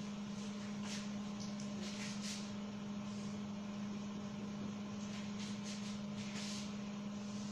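A steady low hum, with a few faint, brief scrapes of a cloth wiping and a marker drawing on a whiteboard.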